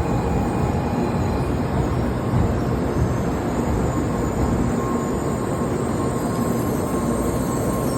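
N700-series Shinkansen running at speed, heard as a steady rumble of running noise from inside the cabin. A faint high steady tone joins about halfway through.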